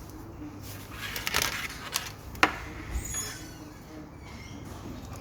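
Small plastic clicks and rattles of a USB plug and cable being handled and pushed into a connector. The sharpest click comes about two and a half seconds in, with a dull knock just after.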